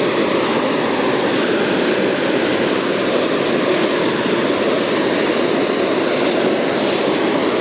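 Steady rush of heavy river current pouring over a rocky riffle, the river running high with water released from the dam upstream.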